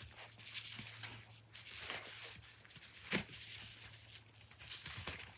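Faint rustling and handling noises from a dog vest and its packaging being handled, with one sharp click about three seconds in, over a faint low hum.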